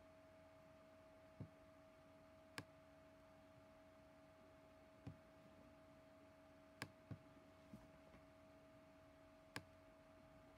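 About seven sharp computer mouse clicks at irregular intervals, two of them close together past the middle, as a text box's settings are adjusted. Under them runs a faint steady two-tone electrical hum.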